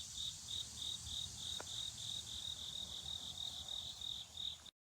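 A cricket chirping in a steady rhythm, about three chirps a second, with a faint click once, until the sound cuts off abruptly near the end.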